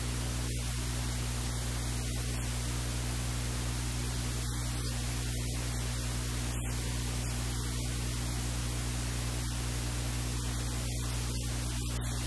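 Steady electrical hiss with a constant low hum.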